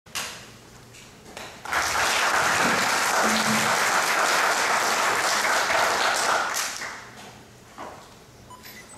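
Audience applauding. The clapping starts about two seconds in, holds steady, then dies away about five seconds later.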